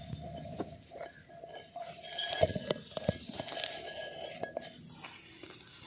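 Dry grass stalks crackling and clicking as they brush against the phone, with sharp knocks of handling. Under them a steady tone that stops about four and a half seconds in.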